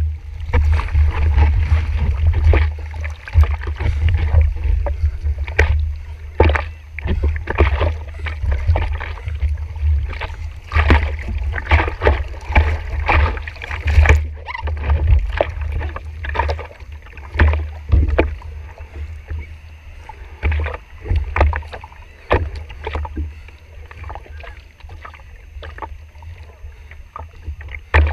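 Sea water lapping, sloshing and slapping against a surfboard right at the waterline as the surfer paddles with his hands, many irregular splashes over a steady low rumble.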